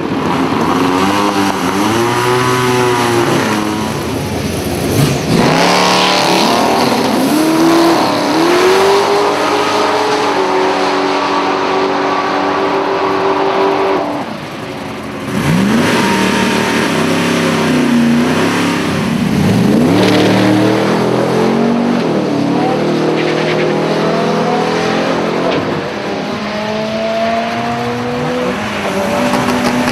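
Drag-racing cars' engines at full throttle, their pitch repeatedly climbing and falling through gear changes. About halfway through, the level drops briefly, then another run begins with engines sweeping up again.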